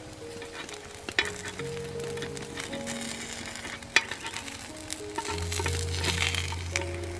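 Rice-flour batter sizzling in the cups of a hot multi-cup cake pan, with a metal spoon clicking against the pan about a second in and again about four seconds in; the sizzle grows louder near the end. Background music plays under it.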